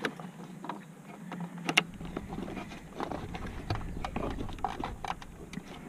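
Scattered small clicks and taps of a screwdriver and plastic dashboard parts being handled around a pickup's gauge cluster, the sharpest at the start and just under two seconds in, with a low rumble from about two seconds on.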